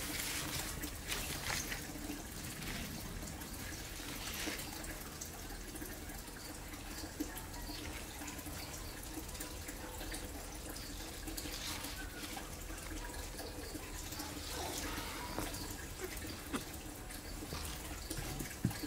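Hands handling a jackfruit stem: light rustling in the first few seconds and a couple of small clicks, over a steady background hiss with a low hum.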